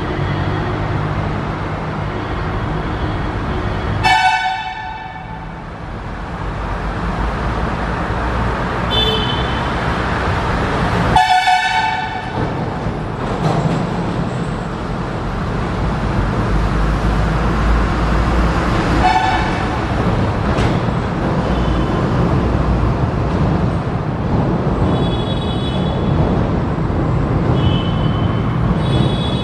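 WAG9 electric locomotive sounding its horn as it runs through the station: a long blast about four seconds in, another about eleven seconds in and a shorter one near nineteen seconds. Beneath them is the steady rumble of the approaching train.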